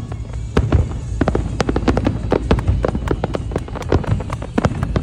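Aerial fireworks bursting in quick succession: a rapid, irregular string of bangs and crackles over a low, continuous rumble.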